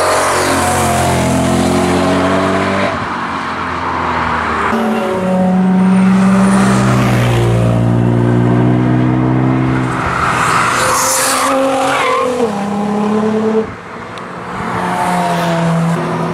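Cars passing one after another on a race track, their engines revving hard with pitch steps as gears change. Tyres squeal as a BMW slides through the corner, and a Nissan GT-R follows about eight seconds in.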